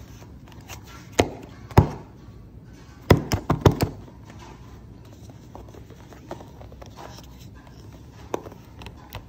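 Handling knocks and taps from the boxed coin and its packaging being moved about. Two sharp knocks come about a second apart, then a quick cluster of four or five near the middle, then a few faint taps.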